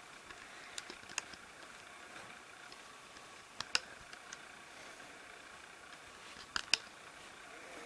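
Sparse sharp plastic clicks and small taps as rubber bands are stretched and snapped onto the pegs of a plastic Rainbow Loom. There are a few clicks seconds apart, two in quick succession near the end.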